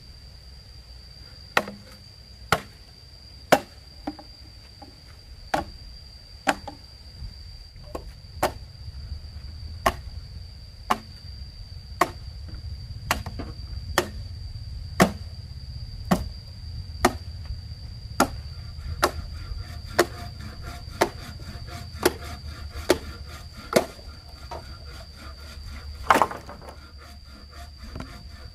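Evenly paced blows of a tool on wood, about one a second, with one sharper, louder strike near the end. A steady high-pitched insect drone runs underneath.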